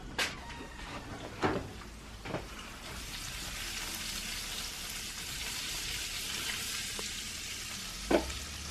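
Chicken pieces sizzling in a hot frying pan: a steady hiss that swells a few seconds in, with a few short knocks.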